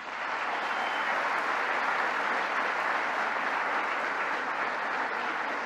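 A large seated audience applauding steadily in a theatre hall.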